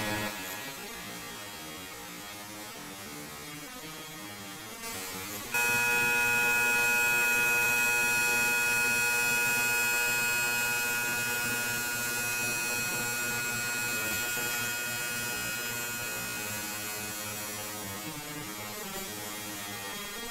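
Electronic drone music: a buzzing, humming bed of steady held tones with hiss above. It starts quieter and jumps suddenly louder about five seconds in, then slowly fades.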